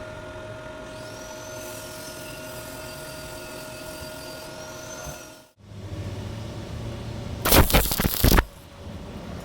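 A steady electrical hum, then after a cut a loud crackling burst of about a second near the end: the sizzle of an electric arc welding square tube.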